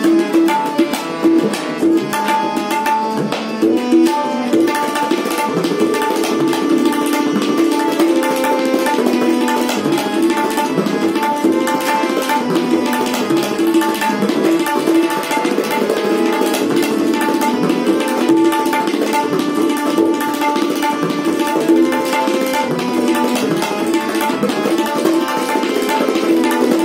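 Tabla solo in teentaal: a pair of tabla drums played in quick, dense strokes over a harmonium repeating a short lehra melody.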